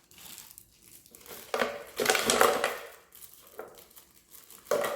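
Ice cubes being handled and dropped into a blender jar over the smoothie ingredients: irregular clattering and rattling, loudest about two seconds in, with another short clatter near the end.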